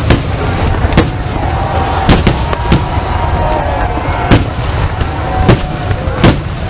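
Fireworks display: about eight sharp aerial shell bursts at uneven intervals, over a steady low rumble.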